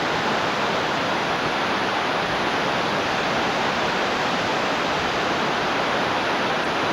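Floodwater pouring over the tops of a dam's spillway gates, about two feet deep: a steady, unbroken rush of falling water at high flood flow.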